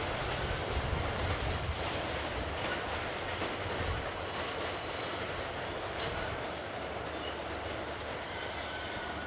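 Freight train's wagons rolling along the rails in a steady rumble, with a thin, high wheel squeal about halfway through.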